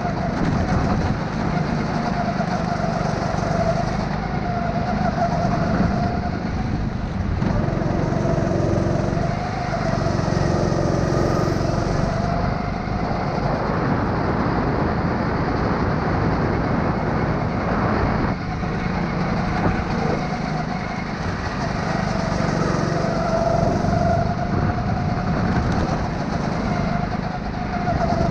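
Onboard sound of a go-kart engine at race pace, its note rising and falling as the kart accelerates along the straights and lifts for the corners.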